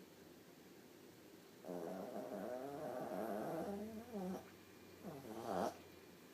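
Sleeping dog snoring loudly: a long, wavering, pitched snore of nearly three seconds, then a shorter one about a second later.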